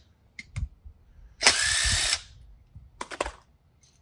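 A power drill runs in one short burst of under a second, about a second and a half in, its motor pitch rising as it spins up. A few sharp clicks come before it and a quick run of clicks near three seconds.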